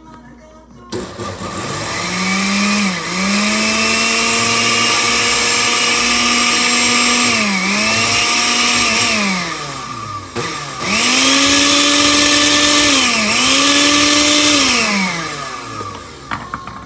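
Countertop blender motor blending blueberries in almond milk, loud, in two runs. It spins up and runs about nine seconds with brief dips in speed, winds down, then starts again almost at once for about five seconds more before winding down.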